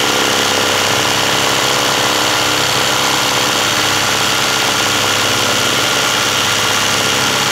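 Electric sewing machine running steadily at speed, its needle stitching a dense zigzag satin fill.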